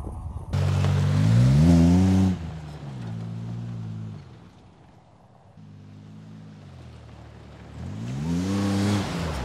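Pickup truck's engine heard through a new Magnaflow aftermarket exhaust with high-flow catalytic converters, revving up under acceleration in short clips cut together. The note climbs in pitch about a second in, settles to a steadier, lower run, drops off briefly near the middle, then climbs again near the end.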